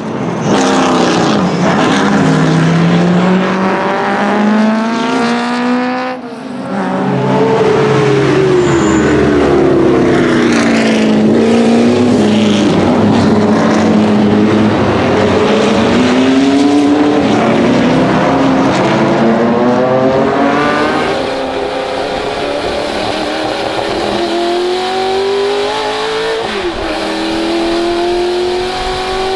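1965 Ford GT40's V8 racing hard, its revs climbing and falling again and again through gear changes. Near the end it is heard from inside the cockpit, revving steadily upward.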